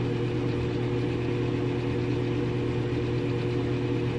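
A steady machine hum that does not change, with a low drone and a higher steady tone above it.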